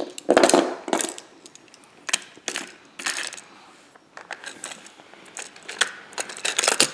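Small die-cast metal toy trains and playset pieces clattering and clinking together in irregular runs of sharp clicks as they are handled.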